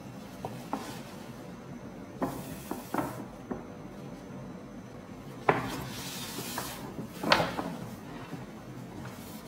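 Stiff paper shopping bag being handled and turned over: paper rustling and crinkling, with a few sharp crackles, the loudest about five and a half and seven seconds in.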